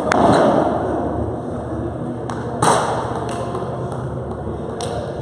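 Padel ball being struck by rackets and bouncing off the court, a handful of sharp pops echoing round a large hall; the loudest hits come right at the start and about two and a half seconds in.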